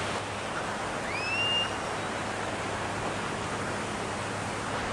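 Ocean surf washing on a sandy beach, a steady even rush. About a second in, a single short whistle-like call rises in pitch and then holds briefly.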